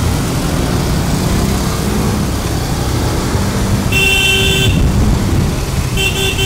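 Scooter and motorcycle engines running with road noise while riding in traffic. A vehicle horn toots for under a second about four seconds in, and again near the end.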